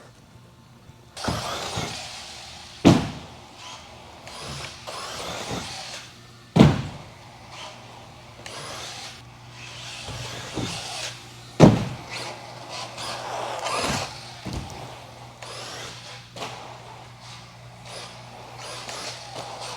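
Associated RC10B6.4 electric RC buggy running laps, its motor and drivetrain whining up and down with the throttle. There are three loud sharp knocks, about 3, 7 and 12 seconds in, and a smaller one near 14 seconds.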